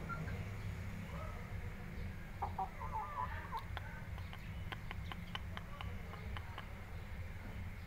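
Chickens clucking briefly, about two and a half seconds in, followed by a quick run of sharp taps as a young Shamo pecks feed from a small bowl. A steady low hum runs underneath.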